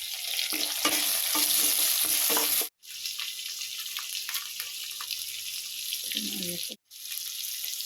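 Chopped onion, tomato and green chillies sizzling as they fry in hot oil and ghee in a pan, a steady hiss that drops out for an instant twice.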